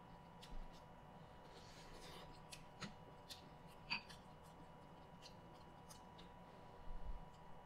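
Quiet eating sounds of corn on the cob being chewed, with scattered soft mouth clicks. About four seconds in, a metal spoon clinks briefly against a glass bowl of sauce.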